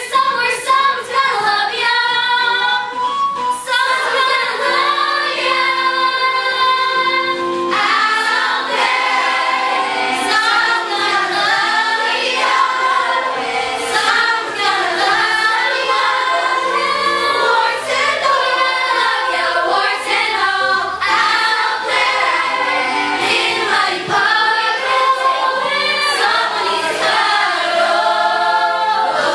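Young voices singing together as a chorus in a musical-theatre number, with musical accompaniment.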